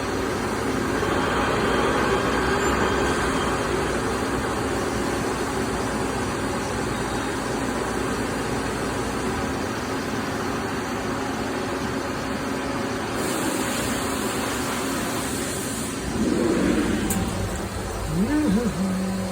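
Doosan PUMA GT2600 CNC lathe running a cut in SUS316 stainless steel, a steady mechanical noise with a faint hum. Near the end come two short louder swells, the second with a brief pitched sound that rises and falls.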